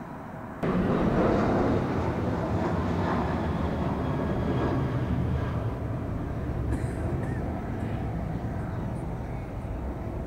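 Steady rumble of distant jet aircraft engines, jumping up suddenly in level about half a second in and then slowly easing.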